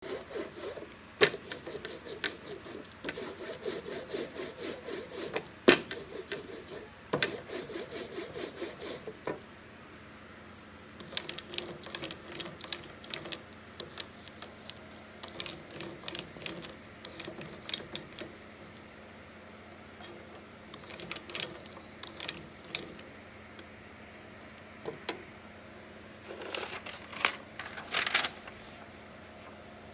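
A hand ink brayer is rolled quickly back and forth through tacky black letterpress ink on an ink slab, a loud, rapid rubbing that runs in close-spaced strokes. After a pause of about two seconds, quieter, broken strokes follow as the inked brayer is run over the type in the proofing press bed.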